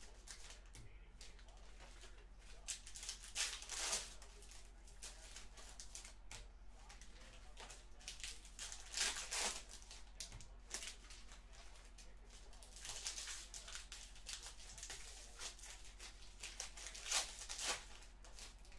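Football trading cards and their foil pack wrappers being handled, giving several short bursts of rustling and sliding.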